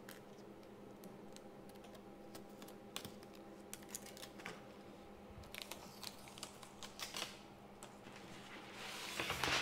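Scattered light clicks and taps of hand work with a blade and the panel on the bench, over a steady faint hum, with a short scraping swell near the end.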